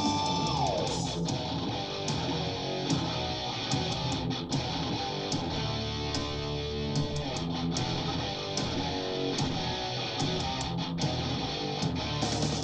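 Heavy metal music played back, led by electric guitar; one guitar note glides down in pitch about half a second in.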